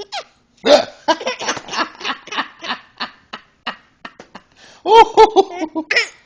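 Hearty laughter: a long run of rapid laughing pulses that fades over about three seconds, then a few higher-pitched laughs near the end.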